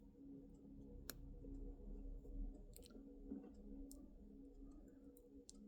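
Lego Technic plastic parts clicking as they are handled and pressed together: half a dozen sharp, separate clicks over a few seconds.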